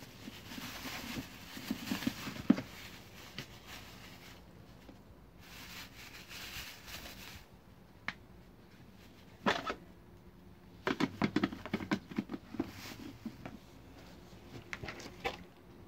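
Plastic bag wrapping on a solar garden light crinkling and rustling in several stretches as it is handled and pulled off. Hard plastic lamp parts knock and click intermittently, in a quick cluster a little past the middle.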